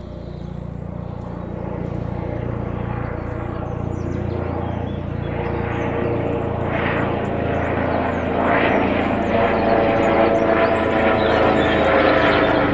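Airbus H145 helicopter with its Fenestron tail rotor flying in: a steady rotor and turbine drone that grows steadily louder as it approaches, with a steady whine coming through more clearly near the end.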